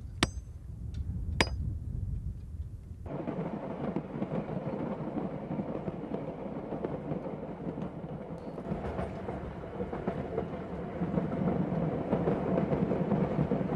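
Two sharp, ringing metal strikes on a steel rail track in the first two seconds. About three seconds in, the sound changes to the steady rumble and rattle of a moving train, heard from inside a carriage.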